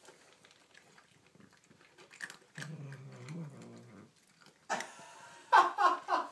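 A cat growls low and steadily for over a second while the two cats share one food bowl. Near the end come louder, higher-pitched cries.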